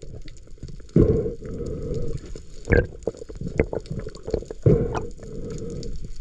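Underwater audio of a swimming freediver: muffled water rushing past the camera housing, swelling in about three surges, with scattered sharp clicks.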